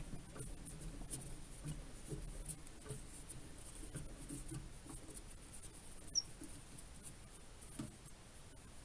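Faint, scattered scratching and rustling of light handling, with one sharp click about six seconds in.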